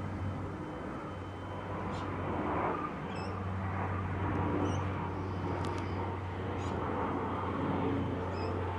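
Steady low outdoor rumble with a few short, high bird chirps scattered through, about four of them.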